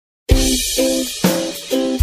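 Background music with a drum beat and repeating pitched notes, starting after a moment of silence.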